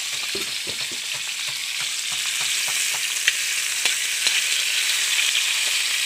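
Chopped garlic, onion, tomatoes and chilies sizzling in hot oil in a steel wok, with a steady frying hiss. A metal ladle stirs them, and its taps and scrapes against the pan come through as sharp ticks, most clearly a few seconds in.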